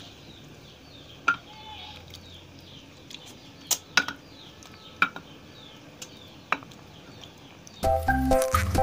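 Jackfruit seeds spat into ceramic bowls: a few sharp clinks, two in quick succession about four seconds in, over a quiet room. Background music with a beat starts near the end.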